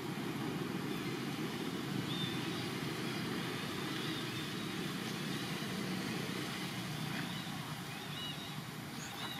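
Steady low rumble of background noise, with a few faint short high chirps.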